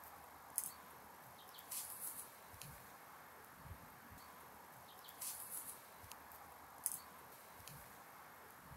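Faint rustling and crackling of thyme and rosemary sprigs being handled and pulled apart, in short bursts of a second or less, over a steady low hiss.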